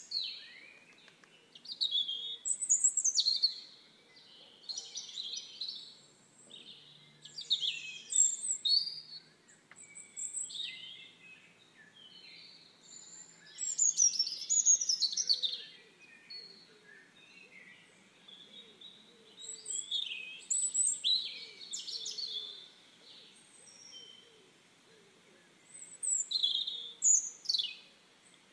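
Songbirds singing and chirping in short phrases of quick high notes and trills that come every few seconds, with quieter gaps between them.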